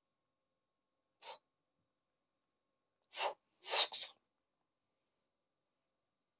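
Cat sneezing four times: one faint sneeze, then about two seconds later three louder sneezes in quick succession, the last two nearly run together.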